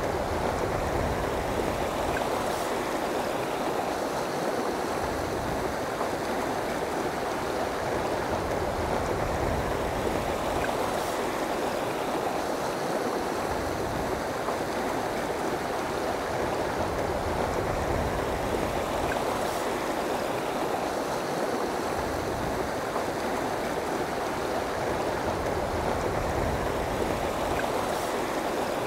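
River water rushing over and between rocks in a fast riffle: a steady, unbroken rush.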